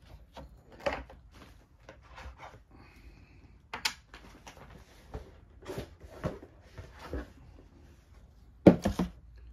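Game map tiles being handled and moved on a table: scattered rustles and light knocks, a sharp click about four seconds in, and a louder thump near the end.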